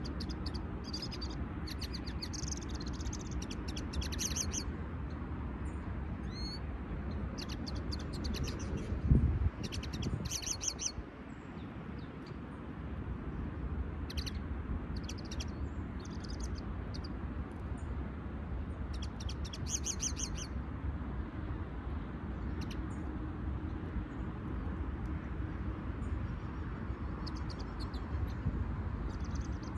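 Caged finches singing in spells of rapid, high twittering notes on and off, over a steady low rumble of wind on the microphone. One loud low thump about nine seconds in.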